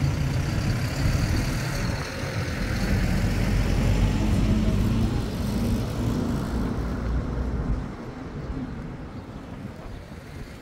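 Motor vehicle engine rumbling close by on the street, fading away about eight seconds in.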